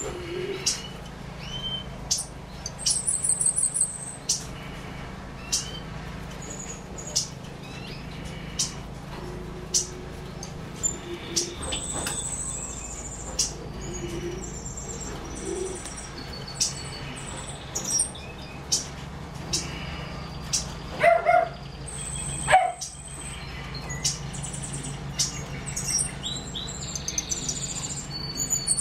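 Caged yellow-faced grassquits (tomeguín de la tierra) chirping, with short, thin, high buzzy trills every several seconds and frequent small clicks from the cage. A couple of louder mid-pitched sounds come about three-quarters of the way in, over a steady low hum.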